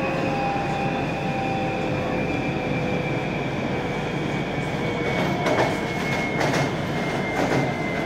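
Commuter train running, heard from inside the carriage: a steady rumble of wheels on rail with a faint high whine slowly dropping in pitch. From about five seconds in, the wheels clack over rail joints several times.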